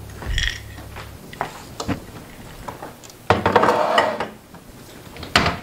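Kitchen handling sounds: scattered light knocks and clicks of items being moved and set down, with about a second of rustling noise a little past the middle. A low steady hum runs under the first second, then stops.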